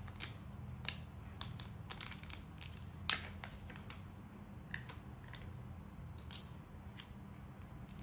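Plastic building bricks clicking and knocking as they are handled and snapped together: about ten scattered sharp clicks, the loudest about three seconds in, over a steady low hum.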